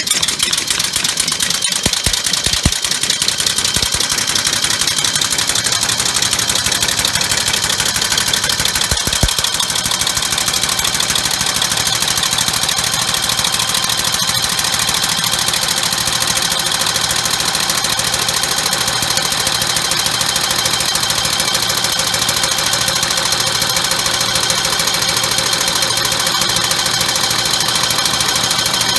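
Homemade oval compressed-air engine running fast on two of its three cylinders, fed from an air compressor: a loud, rapid, steady pulsing of air exhausting from the cylinders as the flywheel spins.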